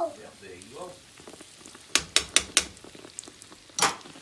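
Dough frying in hot oil in a nonstick skillet, a low sizzle, with four sharp clicks about two seconds in and a louder short burst of noise near the end.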